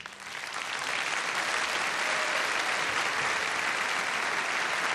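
Concert audience applauding: the clapping breaks out as the music ends, builds over about a second, then holds steady.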